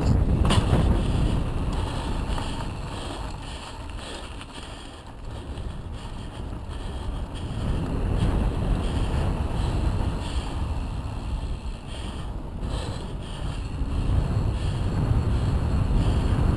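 Wind buffeting the microphone of a camera on a mountain bike riding fast downhill on asphalt, mixed with tyre rumble; the rush eases for a few seconds in the middle, then builds again.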